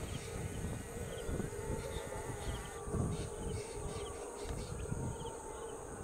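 Outdoor ambience: a steady insect buzz and a steady hum over a low, uneven rumble, with a few small chirps.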